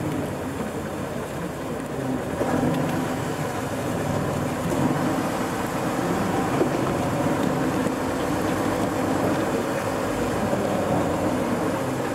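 Diesel engine of an eight-wheel-drive off-road trial truck running steadily as the truck crawls over rocky ground, growing a little louder a couple of seconds in.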